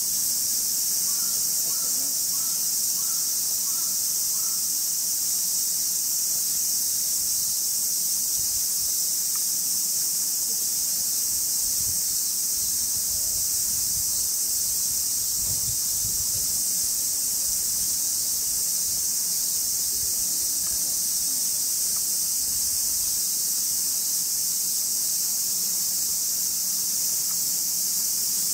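Cicadas in a dense, steady, high-pitched chorus. A brief row of about six faint pips comes in the first few seconds.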